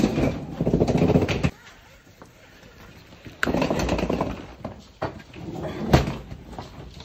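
Hard-shell suitcase wheels rolling over a hallway floor in two stretches, a rattling rumble, with one sharp knock about six seconds in from a door shutting.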